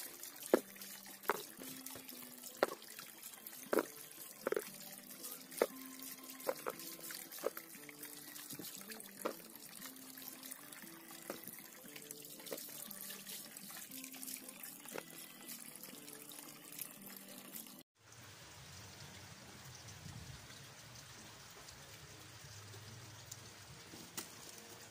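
Water splashing and dripping in a basin as peeled bananas are lifted out of it by hand, with a dozen or so separate splashes over a steady watery hiss. It stops suddenly and gives way to a quieter stretch near the end.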